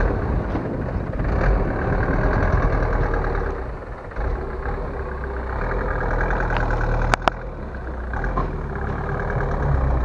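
Engine of a light truck laden with stone blocks running as it manoeuvres slowly over rough ground, its level dipping about four seconds in and rising again. Two sharp clicks close together about seven seconds in.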